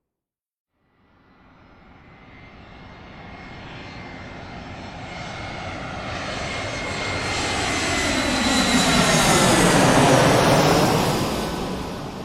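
An airplane flying past: after about a second of silence, its engine noise builds steadily, is loudest about ten seconds in as the plane passes closest, then begins to fade, its whine sinking slightly in pitch.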